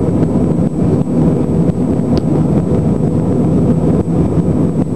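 Steady jet engine and airflow noise inside the passenger cabin of an Airbus A319 climbing out after takeoff.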